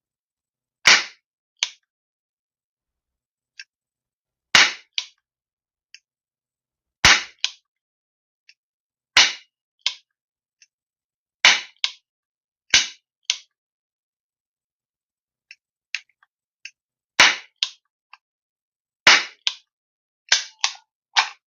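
Toy cap pistol modelled on a Smith & Wesson 659, fired about ten times at uneven intervals of one to five seconds. Each shot is a sharp crack, most followed within half a second by a smaller crack, with faint clicks between shots.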